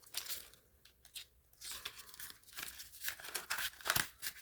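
Paper rustling and crinkling as banknotes and a cash envelope are handled, in a run of irregular crisp rustles and flicks.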